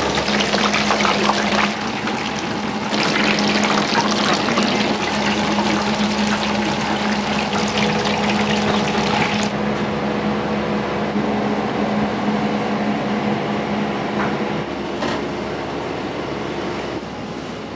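Water running hard from a kitchen tap into a sink or pot, cutting off about nine and a half seconds in, over a steady low hum.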